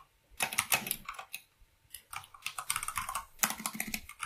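Typing on a computer keyboard: quick runs of keystrokes broken by short pauses, three or four bursts in all.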